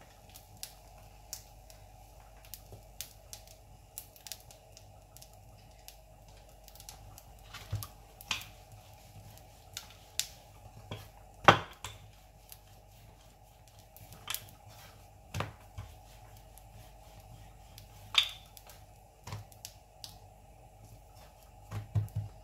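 Wooden rolling pin knocking and tapping on a rolling board as paratha dough is patted out by hand and rolled flat: irregular sharp clicks and knocks, the loudest about halfway through, over a faint steady hum.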